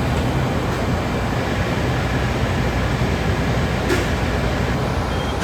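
Steady drone and air rush of a refrigeration condensing unit's fan running.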